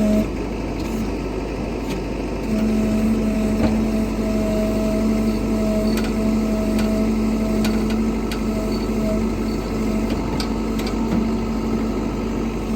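Backhoe engine running under load, its steady hum stepping up in level about two and a half seconds in, with a few sharp clicks scattered through.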